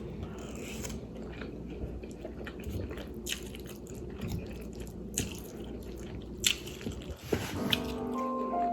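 Close-miked chewing and biting: wet mouth clicks and smacking as a jerk chicken, rice and pineapple bowl is eaten. Background music comes in near the end.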